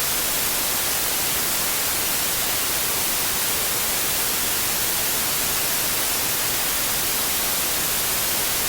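Steady, unchanging hiss of a continuous noise track, strongest in the treble like white noise, with no breaks or events.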